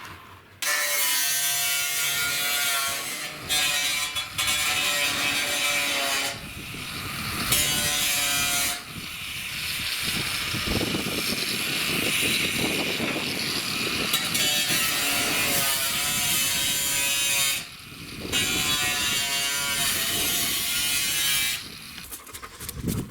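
A saw cutting in several stretches broken by short pauses, with a steady whine under a rasping hiss.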